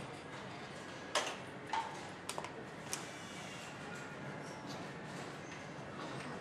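Steady hum of an engine assembly hall, with a few sharp metal clicks and clinks of parts and tools being handled, bunched between about one and three seconds in.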